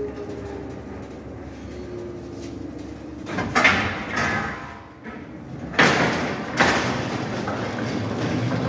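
A bakery rack oven's falling hum fades out, then the oven is opened and a steel trolley rack of trays is pulled out, with metallic rattling and rumbling, loudest about halfway through.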